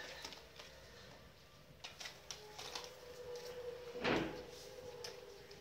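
Light knocks and clicks of a tin can toy hanging from a doorknob as a cat paws it against the door, with one louder thud about four seconds in.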